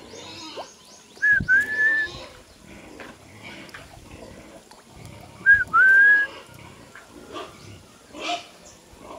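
Two loud two-note whistles about four seconds apart, each a short note followed by a longer one that rises slightly and then holds.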